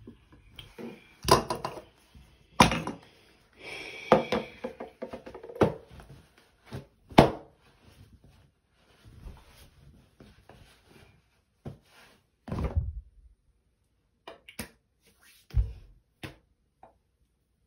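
Handling noise: irregular thumps and knocks with rustling, as a cloth towel is handled near the sink, several louder knocks in the first half and sparser ones later.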